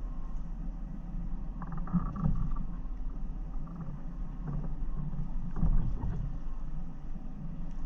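Off-road 4x4's engine running at low revs as it crawls over a rutted dirt trail, with a short rattle about two seconds in and a heavier knock near six seconds.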